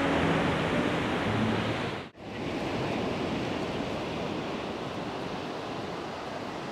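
Surf washing onto a sandy beach, a steady rushing noise. Acoustic guitar music plays over it for about the first two seconds, then cuts off abruptly with a brief dropout, and the surf goes on alone.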